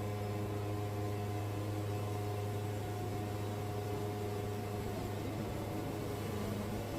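Wood-Mizer band sawmill running with a steady, even machine hum.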